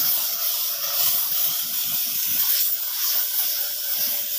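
Compressed-air paint spray gun with a top-mounted gravity-feed cup, hissing steadily as it sprays paint onto sheet steel.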